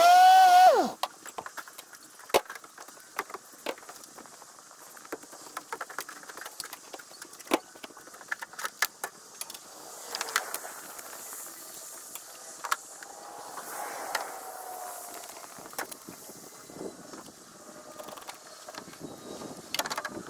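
Work sounds from loading and unloading a snowcat, played back at eight times speed: a steady scatter of sharp clicks, clanks and rattles. A loud, sliding high-pitched whine cuts off within the first second.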